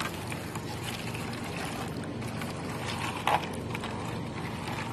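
Water pouring from a plastic bottle into a clear plastic dish, a steady splashing trickle, with one short, louder knock about three seconds in.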